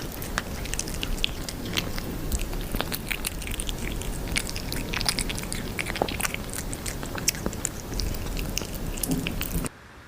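A pet chewing crunchy food close to the microphone: many irregular sharp crunches that cut off abruptly near the end.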